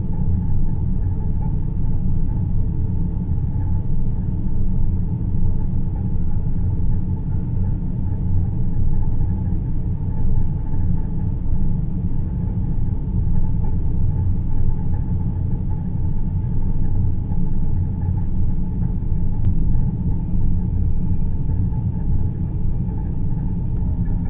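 Deep-space sleep ambience: a steady, low rumbling noise drone, heaviest in the bass, with a fainter hiss above it and a few faint high tones.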